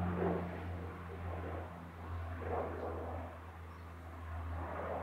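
Saab 340's twin General Electric CT7 turboprop engines and propellers droning as the airliner climbs out after takeoff: a steady low hum under a rushing noise that swells and fades several times.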